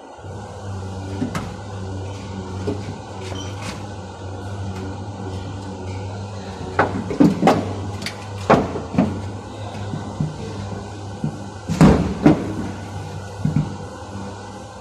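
Sharp knocks and clunks of body-repair work on a car's rear panel: a quick cluster of about five past the middle and two louder ones later, over a steady low hum.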